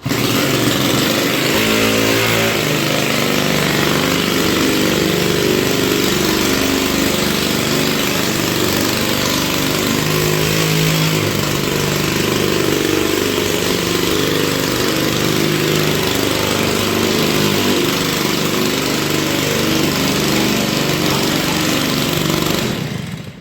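Small 75cc two-stroke petrol engine of a motorised wheelbarrow trolley running steadily, then dying away near the end.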